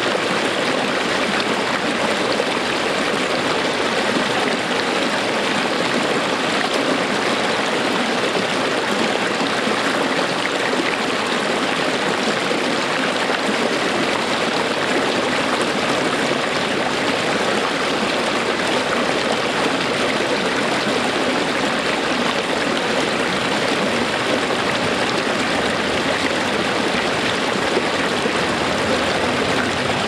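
A small waterfall: water pouring over a low stone ledge and splashing across rocks below, a steady rushing with no breaks.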